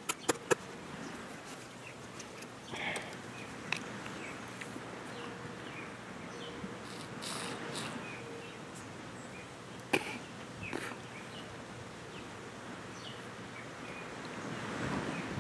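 Quiet outdoor background of insects and birds, with a few sharp clicks and brief noises of a husked coconut being handled and drunk from, the longest rush of noise about halfway through.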